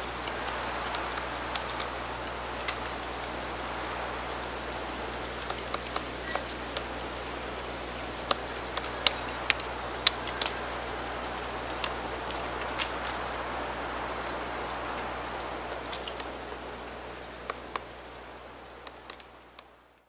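Black-backed woodpecker pecking at tree bark: irregular, sharp single taps scattered over a steady background hiss, fading out near the end.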